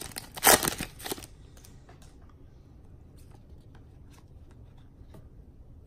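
Foil trading-card pack wrapper crinkling as it is torn open, dying away after about a second. Then come faint taps and slides of the freshly pulled cards being handled.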